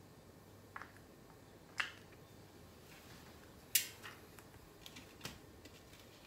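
Handling noise from a carbon road-bike wheel: a handful of faint, separate clicks and knocks as it is picked up and turned, the sharpest about four seconds in.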